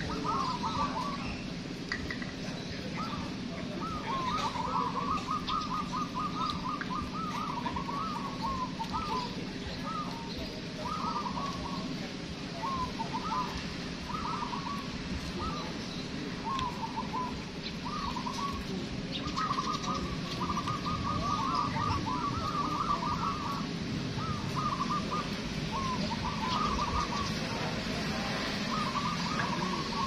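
Many caged zebra doves (perkutut) singing at once, their short rolling cooing phrases overlapping almost without a break.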